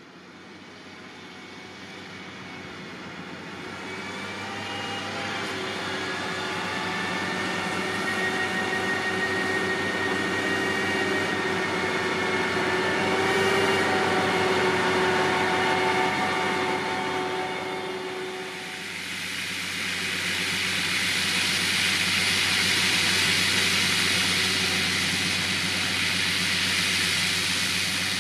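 Vredo VT3306 self-propelled slurry applicator with its 20500Z tank semi-trailer and arable-land injector, working as it injects slurry. The engine and several steady whining tones grow louder as it approaches and passes. A little past two-thirds of the way through, the sound changes to a steady broad hiss over a low hum.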